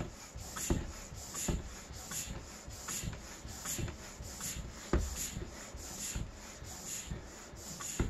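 Park Tool floor pump being worked in a steady rhythm of even strokes, each with a rubbing hiss and a low thump, inflating a tubeless mountain-bike tyre toward about 60 psi just after its bead has seated.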